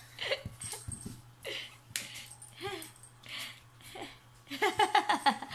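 Small dogs playing: short huffing breaths and a sharp click, then a brief run of whiny, yelping vocal sounds near the end.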